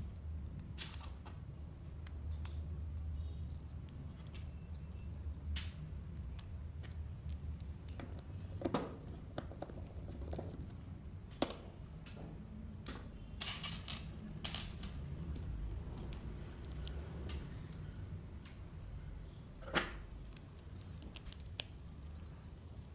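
Small laser-cut wooden parts and screws being handled and set down on a tabletop: scattered light clicks and taps, a few sharper ones, over a low steady hum.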